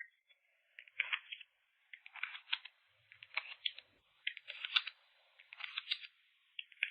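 Crisp crinkling and clicking of photocard packing materials being handled, in short clusters about once a second.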